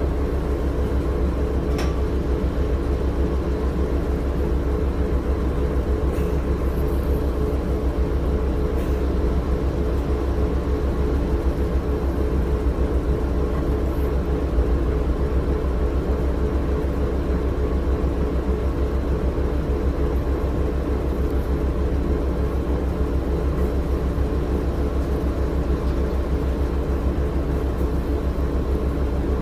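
Inside the cabin of a 2006 Orion VII low-floor transit bus: its Cummins ISL9 diesel and Allison automatic drivetrain running steadily, a constant low drone with a steady hum over it. A few faint clicks come through.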